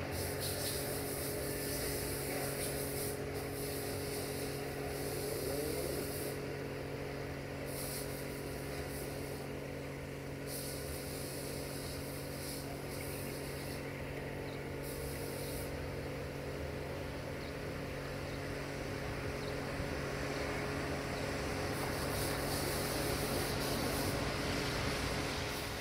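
Tanker freight train hauled by an LDE2100 (060-DA) diesel-electric locomotive moving slowly away, a steady engine hum, with cars driving over the level crossing.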